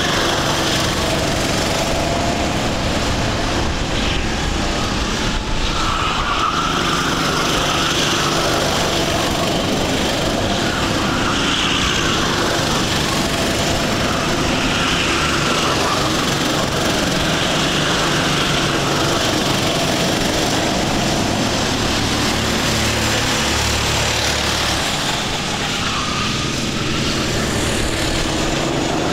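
Sodi rental race karts' engines running hard as the karts lap the circuit, one engine note after another coming and going as they pass and corner.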